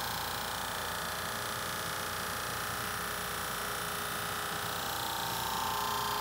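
SuperMax drum sander running steadily, its sanding drum working across a walnut and epoxy river table slab as the conveyor feeds it through.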